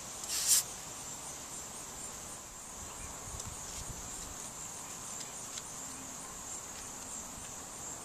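A short hiss of glue spurting from a squeezed Beacon Fabri-Tac glue bottle about half a second in, then a steady, high-pitched chorus of insects chirping with an even pulse.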